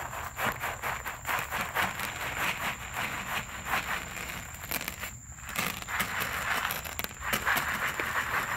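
Dry pet-food kibble poured from a paper bag onto a plastic tray: a dense rattling patter of pellets mixed with the bag crinkling, pausing briefly about halfway.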